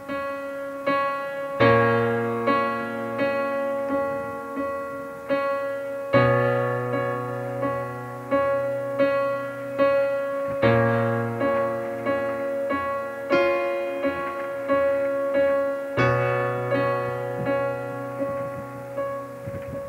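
Background piano music: chords struck one after another, each ringing and fading before the next.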